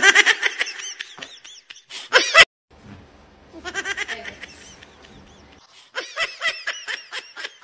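A man laughing "ha ha ha" in quick, repeated pulses, in three bouts.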